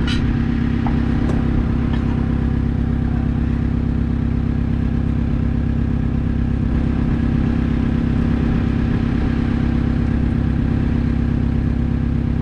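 An engine running steadily at one even speed, its hum holding a single pitch throughout. A few light metal clinks sound in the first two seconds as the cylinder head is guided down over its studs.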